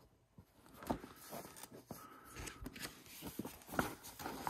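Pages of a large paper booklet being turned by hand: soft paper rustling with a few sharper crinkles.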